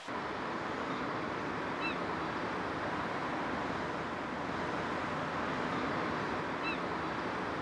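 Steady outdoor rumble of an industrial area beside a rail yard. A bird gives a short chirp twice, about two seconds in and again near the end.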